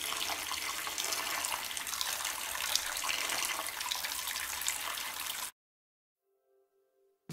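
Kitchen tap running a steady stream into a water-filled bowl, splashing over Cubanelle peppers as they are rinsed; the sound cuts off suddenly about five and a half seconds in.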